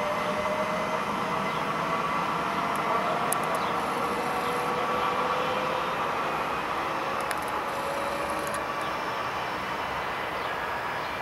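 Trenitalia ETR 104 'Pop' electric multiple unit pulling away and accelerating, its traction motors whining in slowly rising tones over the rumble of wheels on the rails, gradually fading.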